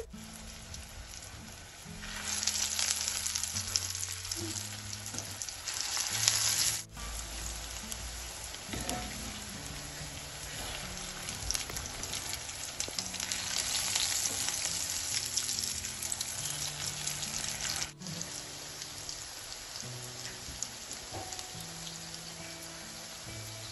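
Breadcrumb-coated pumpkin and lentil kebabs sizzling in hot frying oil, with quiet background music underneath. The sizzle is loudest for a few seconds about two seconds in, and breaks off abruptly twice.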